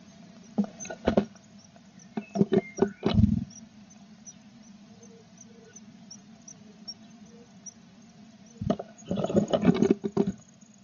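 Tit nestlings begging in the nest with high squeaks as a parent arrives to feed them, with scrabbling knocks and rustling in two bursts, near the start and near the end. Faint high peeps repeat steadily in between.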